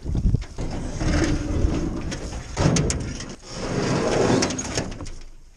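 Aluminium canoe hull scraping and knocking against shoreline rocks as it is hauled up out of the water, dying down near the end.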